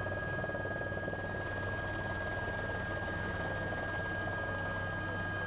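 Helicopter turbine and rotor running steadily in flight: a constant low rotor noise under a steady high-pitched whine.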